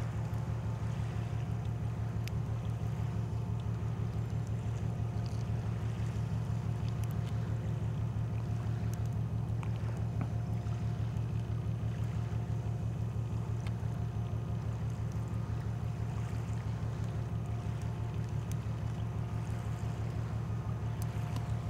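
A boat's engine running steadily: a low, even drone with a fast regular throb.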